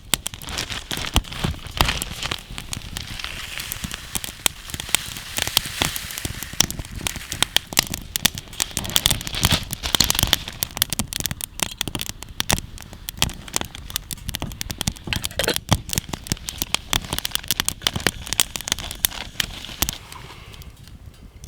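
Wood fire crackling, with many irregular sharp pops over a steady hiss; it quietens about 20 seconds in.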